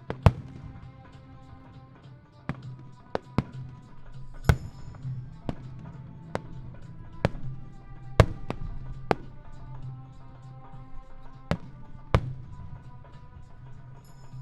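Fireworks shells bursting in sharp bangs, about a dozen at irregular intervals, over music playing throughout.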